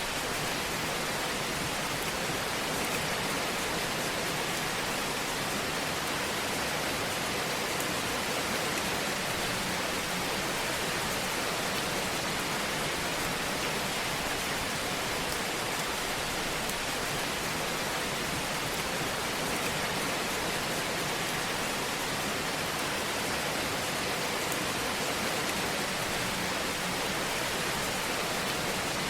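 Wood fire in a fireplace burning with a steady hiss and faint, scattered crackles.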